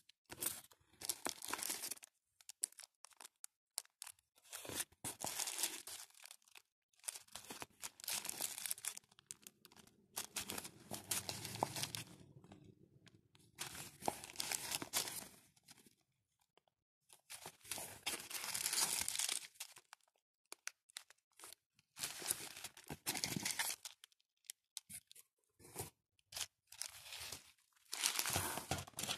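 Plastic zip-lock bags of beads crinkling and rustling as they are handled and lifted from a cardboard box, in irregular bursts of a second or two with short pauses between.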